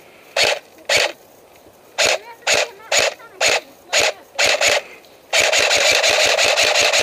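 Airsoft SVD sniper rifle replica firing: eight sharp single shots, mostly about half a second apart, then a rapid full-auto burst starting about five seconds in.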